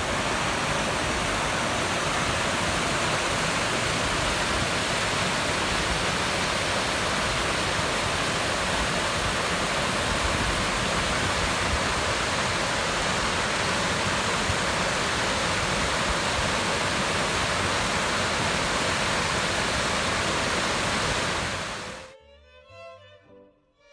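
Steady rushing water, an even unbroken roar that cuts off suddenly near the end.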